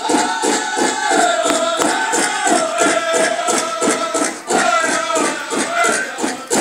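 Powwow drum group playing a song for fancy shawl dancers: a big drum struck in a steady, fast beat under high-pitched group singing that steps down in pitch through each phrase.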